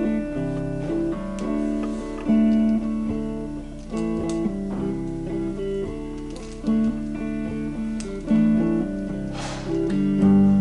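Background guitar music, notes plucked and strummed.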